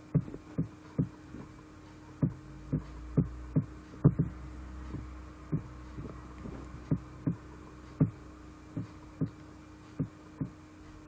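Soft low knocks at an uneven pace of about two a second, over a steady low hum.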